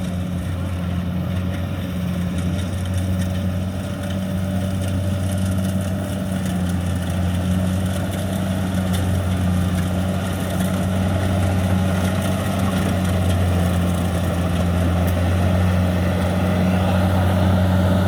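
Kubota rice combine harvester running steadily while cutting, a constant deep engine hum with machinery clatter, growing slightly louder toward the end.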